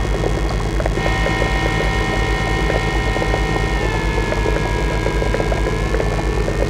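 Live electronic drone played through a mixing desk: a dense, pulsing low rumble with crackles under several steady high tones, two of which slide down a little in pitch about four seconds in.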